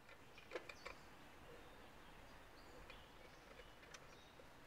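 Near silence, with a few faint clicks about a second in and small squeaks and clicks later, from gloved hands handling a plastic syringe and an old copper carbide lantern.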